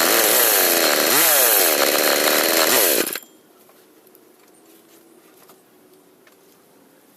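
Husqvarna 365 two-stroke chainsaw running at high revs, its engine pitch dipping and recovering twice, then stopping suddenly about three seconds in. A few faint ticks follow in the low background.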